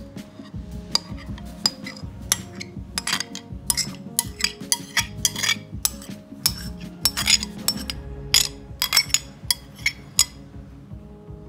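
A spoon clinking and scraping against bowls in quick, irregular strokes as a thick yogurt marinade is scraped out onto raw chicken. The clinks stop about ten seconds in, leaving soft background music.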